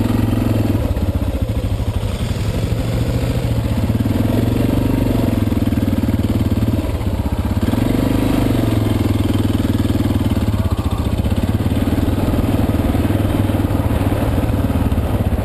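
Suzuki DR650's single-cylinder four-stroke engine running on the move, heard from the bike itself. Its note rises and falls in several slow swells as the throttle is rolled on and off.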